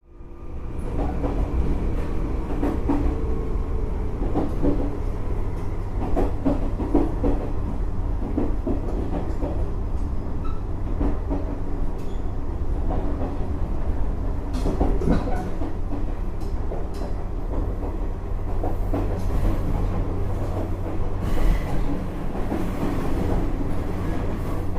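A vehicle in motion: a steady low rumble with irregular rattling clacks, fading in at the start.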